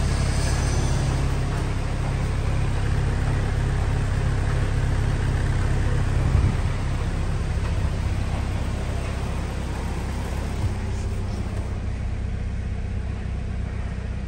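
2007 Saturn Sky's 2.4-litre four-cylinder engine idling steadily, with one brief thump about six seconds in.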